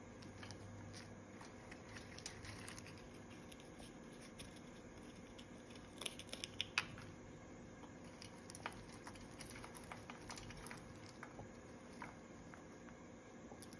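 Green-winged macaw eating from its food bowl: scattered small clicks and crunches of its beak on nuts and seeds, with a quick run of louder cracks about six seconds in.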